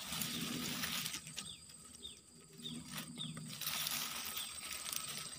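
Dense ferns and grass rustling as they are pushed aside by hand, in two spells, over a steady high insect buzz.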